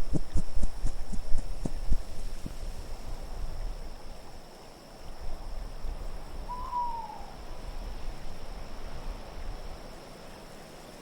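Low wind noise with a run of soft low thumps in the first two seconds, and a single short owl hoot falling in pitch about six and a half seconds in. A faint steady high tone runs underneath.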